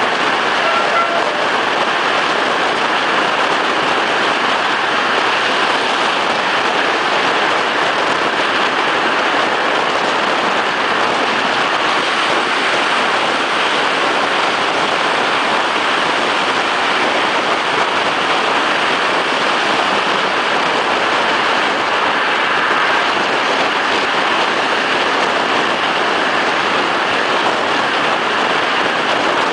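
Steady rush of air and running noise of a regional train at speed, heard from an open carriage window.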